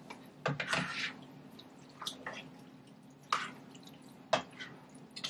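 Vegetables being stirred in a pot with a utensil: irregular wet squishing and scraping, with a few sharper knocks of the utensil against the pot, the loudest about four seconds in.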